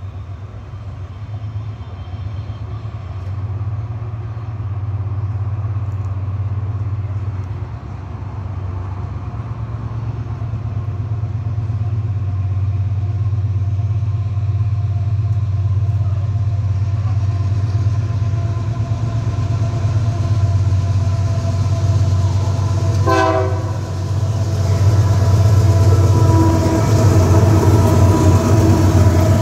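Pair of GE AC44i diesel-electric locomotives drawing near at the head of a loaded iron-ore train: a deep engine rumble that slowly grows louder, with the locomotive's air horn sounding a chord near the end as the lead unit arrives.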